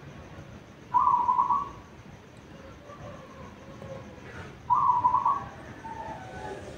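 Zebra dove (perkutut) cooing: two loud phrases about four seconds apart, each a quick run of pulsed notes lasting under a second. Fainter cooing from other doves sounds between and after them.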